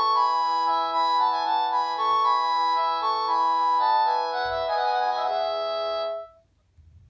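Polyphonic ringtone melody played through the speaker of a Panasonic KX-TG7321E cordless phone, several notes sounding at once. It ends about six seconds in.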